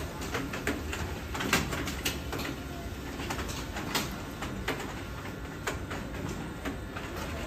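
Garment workshop ambience: a steady low hum with irregular short clicks and taps scattered through it.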